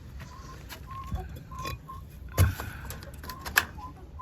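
Chickens giving short, repeated calls, with scattered sharp clicks and a louder knock about two and a half seconds in.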